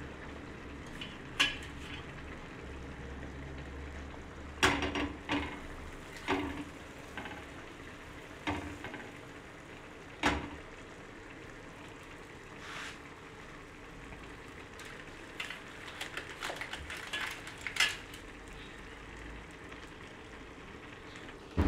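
Buttered pav buns sizzling faintly on a hot iron tawa, with scattered sharp clicks and knocks of a knife and the bread being set down and pressed onto the pan.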